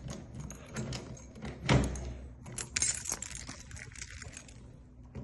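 Metal keys jangling and clicking as they are handled and tried in door locks, with a dull knock a little under two seconds in.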